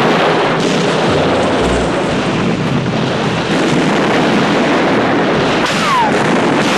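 Film battle sound: continuous gunfire and explosions in a dense, loud din, with a deep thump about two seconds in and a short falling whistle about six seconds in.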